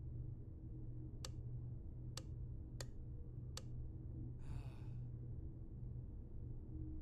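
Wall light switch flicked four times, sharp separate clicks over about two and a half seconds, followed by a short sigh. A steady low hum lies underneath.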